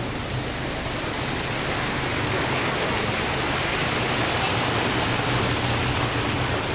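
Water rushing and churning into a canal lock chamber as the lock is filled: a steady rushing noise that grows slightly louder over the first few seconds.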